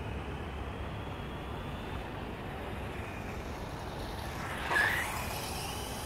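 Small motor whine of a radio-controlled toy motorcycle, faint at first, then briefly louder as it passes close about five seconds in, over a steady low background rumble.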